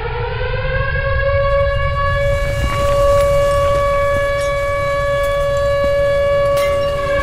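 Outdoor tornado warning siren wailing: its pitch climbs over the first second or so and then holds at a steady high wail, over a low rumble.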